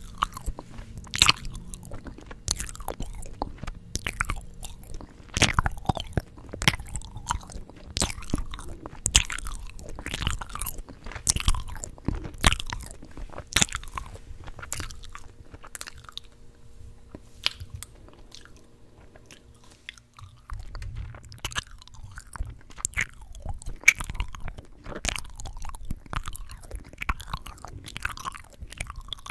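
Close-miked chewing gum: irregular wet smacks and clicks of the mouth working the gum, with a brief lull about two-thirds of the way through.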